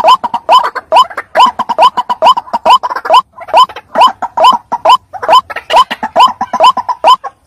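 White-breasted waterhen (ruak-ruak) calling: short rising notes repeated about two a second, with rougher noisy calls between them.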